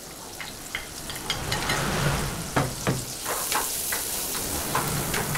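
Sliced carrots and onion sizzling in margarine in a non-stick frying pan, with repeated clicks and scrapes of a plastic spatula as the vegetables are pushed in and stirred. The sizzle grows louder over the first two seconds as the carrots hit the hot fat.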